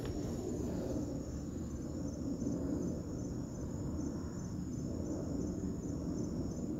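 Crickets chirping steadily in a high, quickly pulsing trill over a louder low rumble.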